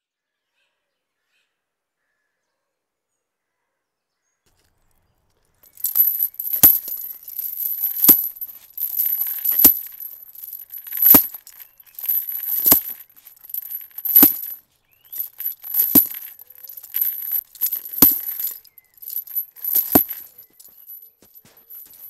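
Slow, heavy footsteps, one every second and a half to two seconds, starting about six seconds in, with a metallic jingling rattle around each step.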